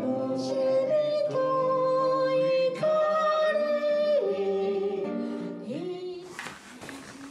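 A folk song sung to an acoustic guitar, with held sung notes over plucked strings. The music fades out about six seconds in, leaving room noise.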